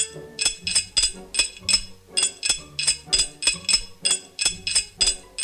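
Foley clinking: small metal objects struck in a steady rhythm, about three to four strokes a second, each with a short bright ring, over a low hum that comes and goes.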